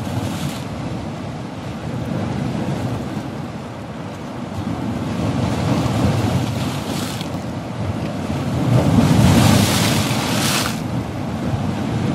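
Dam spillway water pouring through open gates into the churning river below, a steady heavy rush of water. Gusts of wind on the microphone add louder hissing surges, the biggest about nine to ten and a half seconds in.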